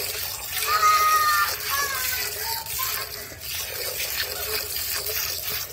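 Hand-milking: jets of milk squirting into a metal bucket that already holds frothy milk, a repeated hissing spray. A brief high-pitched voice comes in about a second in.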